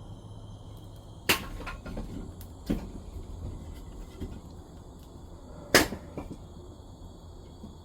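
Sharp cracks of firewood: three loud strikes at uneven gaps, the loudest about six seconds in, with a few softer knocks between them.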